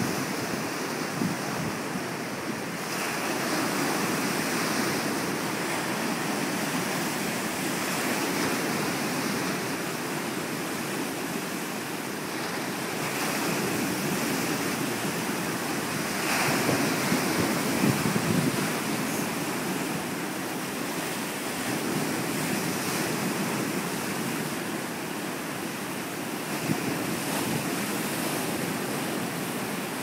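Wind-driven surf breaking and churning over a rocky shore, with wind buffeting the microphone. The wash rises and falls with each set of waves, loudest a little past halfway through.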